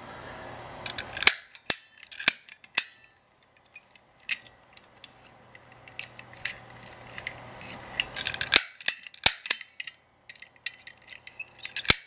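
Manual snap-type lock pick gun (KLOM) working in a brass pin-tumbler deadbolt cylinder: sharp metallic snaps as the trigger is squeezed and the spring-loaded pick needle strikes the pins. Single snaps come a second or two apart, then a quick run of them about eight seconds in and again near the end, as the pins are bounced while tension is held to open the lock.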